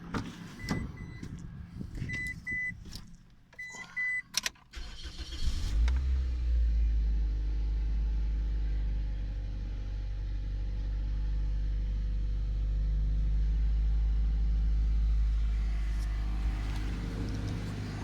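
Toyota Opa's 1ZZ-FE 1.8-litre four-cylinder engine started and then idling steadily. Before it fires there are clicks and several short, high electronic beeps from the car.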